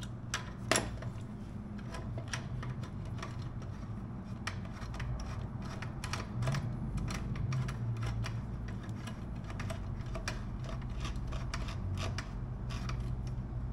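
Light, irregular metallic clicks and ticks from a hand wrench working a screw on a motorcycle's front sprocket cover during reassembly, over a steady low hum.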